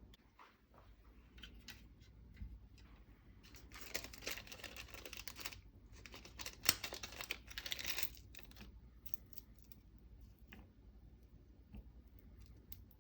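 Plastic parts bag crinkling as it is handled and emptied, with scattered small clicks of the hardware it held, stainless nut plates, screws and bushings, coming out onto the surface.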